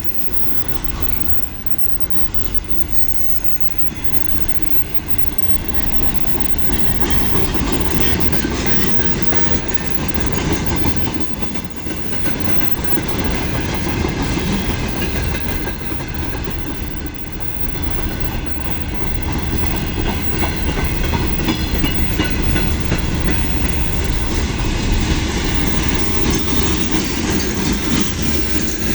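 Mixed freight train rolling past close by, wagon wheels clattering over rail joints with a continuous heavy rumble and some wheel squeal. The microphone is overloaded, so the low end is distorted.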